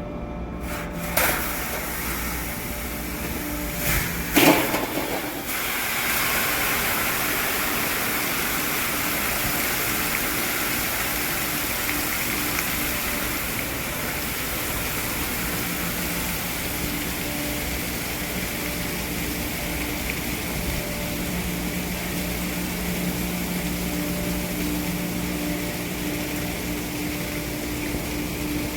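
Machinery running steadily with a low hum, two short knocks in the first five seconds, then a louder, even hiss setting in about six seconds in.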